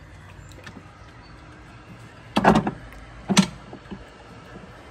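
Sea-Doo iBR reverse gate pushed by hand, clunking twice as it shifts loosely on its mounting; the free play is the slop the owner suspects in the iBR actuator.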